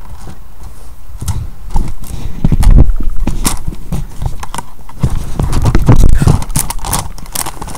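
Irregular knocks, thumps and rustling from a clear plastic food container being handled and the camera being bumped and moved around it.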